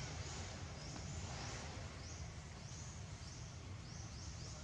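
Birds chirping, short rising high calls repeated about twice a second, over a steady low outdoor rumble.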